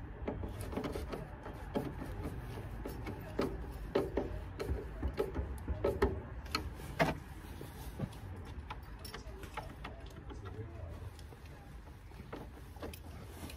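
Irregular clicks and knocks of hands and a screwdriver working on the car's plastic headlight fittings, thickest in the first half, over a steady low rumble.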